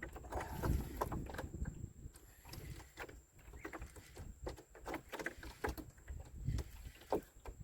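Scattered light clicks and knocks at an irregular pace over a low rumble, with no speech.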